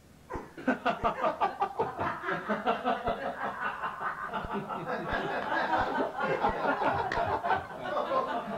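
Two men laughing together in a quick, pulsing run of chuckles that starts about half a second in.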